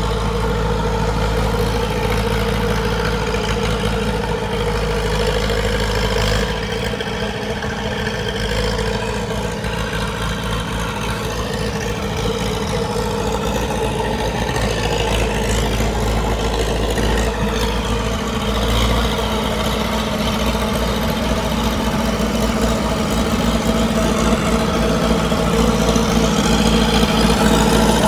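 Old Allis-Chalmers crawler dozer's engine running steadily as the machine works, growing louder toward the end as it comes close.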